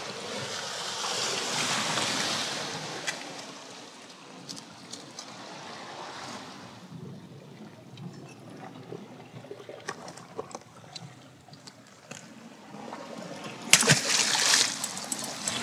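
Sea water washing and sloshing against the shore rocks, with scattered small clicks. Near the end, a sharp splash as a live bait fish hits the water.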